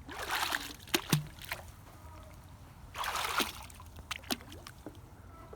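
Water splashing in two short bursts, one at the start and one about three seconds in, with a few knocks between, as a magnet-fishing line is worked in the water.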